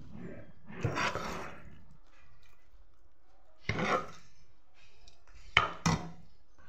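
Eating sounds: fingers mixing and scooping food on a plate. There are short scraping rubs about a second in and again near four seconds, then two sharp clicks a little before the end.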